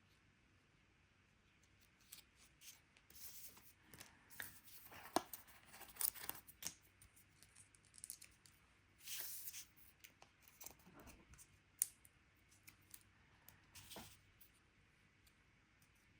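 Faint handling of cut cardstock pieces: scattered light taps and clicks with short rustles of paper, a few sharper ones now and then.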